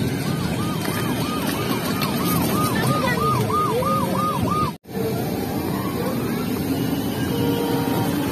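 Electronic toy-siren warble from a children's battery-powered ride-on toy car: a quick chirp repeated about two and a half times a second over steady outdoor background noise, cutting off sharply a little past halfway. Short electronic music notes follow.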